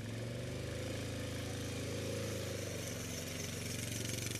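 Yamaha Grizzly ATV engine running at steady, moderate revs as the quad pulls away through snow.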